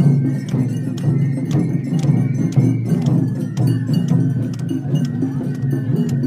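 Mikoshi procession din: many carriers' voices in a rhythmic chant, with sharp clacks of wood or metal on the beat, about two to three a second.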